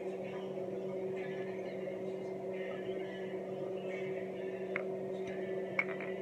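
A steady low hum runs throughout, with soft, recurring rustling and scraping from fingers digging through play sand and a plastic bag. Two small sharp clicks come about five and six seconds in.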